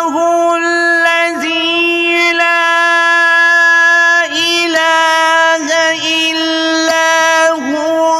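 A man chanting Quranic recitation in the melodic tajweed style. He holds long, drawn-out high notes on nearly one pitch, broken a few times by short melodic turns.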